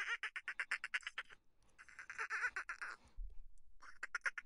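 Dolphin chattering: rapid trains of clicking pulses, about ten a second, in three runs of roughly a second each.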